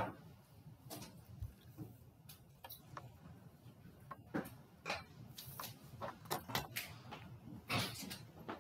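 Scattered light clicks and taps at irregular intervals, roughly one or two a second, over faint room noise, with a sharper click right at the start.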